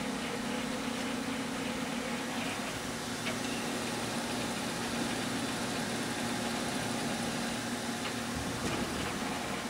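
Okamoto OGM-820UST universal cylindrical grinder running, its OD grinding wheel spinning, giving a steady, even hum.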